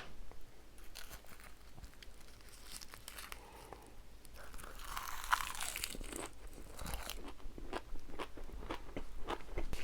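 Close-miked eating sounds: biting and chewing mouthfuls of braised semi-dried pollack and seafood, with many short wet clicks and crunchy crackles, busiest about halfway through.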